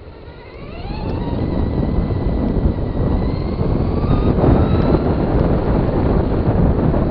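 Traxxas Stamped RC car's electric motor whining, rising in pitch as it accelerates about a second in and then holding a steady high whine, over loud rumbling tyre and wind noise.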